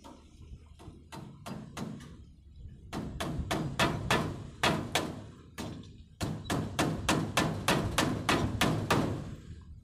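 Hammer driving nails into wooden boards: sharp strikes about three a second, in three runs with short pauses between.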